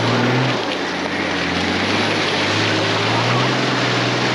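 Nissan Patrol's engine pulling under load, driven with momentum up a rocky track, over a loud steady rush of noise. The engine note dips and then rises about two and a half seconds in.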